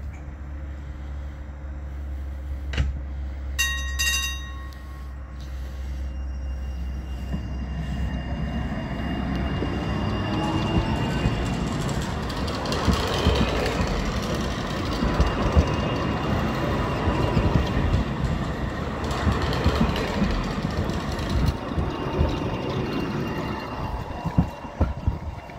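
Two coupled NGT6DD low-floor trams standing with a steady low hum, two short bell strikes about four seconds in, then the trams pulling away and passing close by, the running noise of wheels and traction gear building and staying loud, dropping off near the end.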